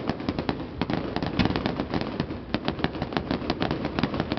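Fireworks going off: a dense, irregular run of sharp pops and bangs, several a second.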